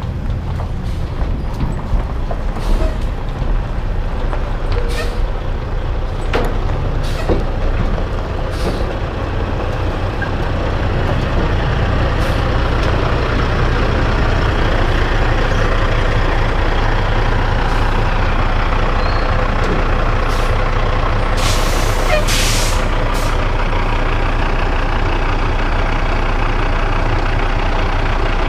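Semi-truck diesel engine running steadily, getting a little louder about a third of the way in. A few sharp clicks come early, and two short loud hisses of air come about three-quarters of the way through.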